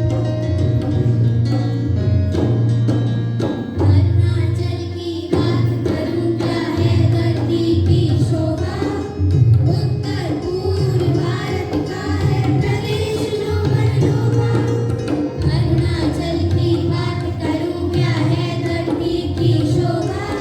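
Recorded folk-style dance music with a steady drum beat and a sung melody that comes in about five seconds in.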